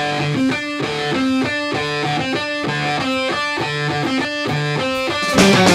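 Background music: a guitar picking a repeating riff of short notes, about four a second, joined about five seconds in by the full band, louder and denser.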